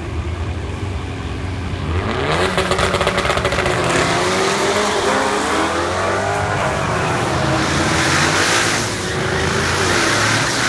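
Mustang V8 engines at a drag strip's starting line: a low rumble, then from about two seconds in hard revving that rises and falls over a loud hiss of spinning tyres as a burnout gets under way.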